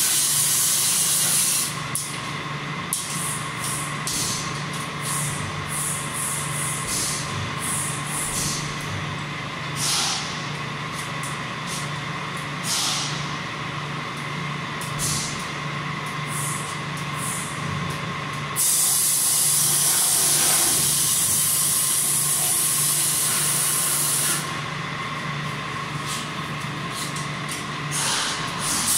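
Pneumatic spray gun spraying ML anti-corrosion cavity compound, hissing in many short bursts, then one long spray of about six seconds starting some two-thirds in, then short bursts again near the end. A steady low hum runs underneath.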